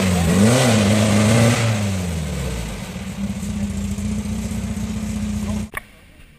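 Off-road rail buggy's engine revving up and down as it climbs a steep dirt hill, then running at a steady pitch. The sound cuts off abruptly near the end.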